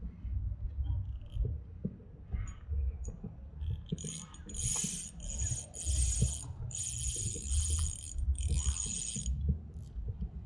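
Ultralight spinning reel (Albatroz Fishing Speed Prime 800) whirring in five short bursts starting about four seconds in, over low handling thumps.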